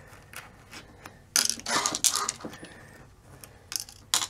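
Small metal nuts with captive shake-proof washers clicking and rattling as they are handled and dropped into a plastic parts tray: a cluster of clinks about a second and a half in, then a few sharp clicks near the end.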